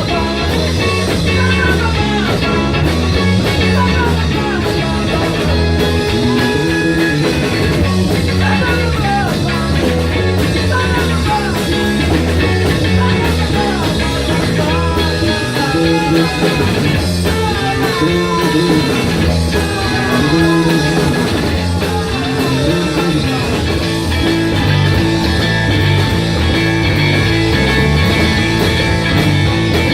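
Rock band playing live, loud and continuous, in an instrumental passage: a lead electric guitar plays repeated falling phrases over bass guitar and drums.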